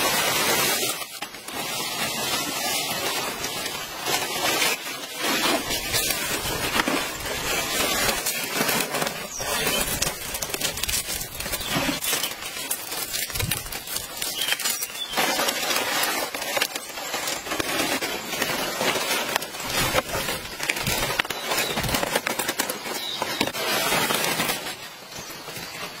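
Palm fronds rustling and crackling as they are carried and handled, a dense run of many small crackles.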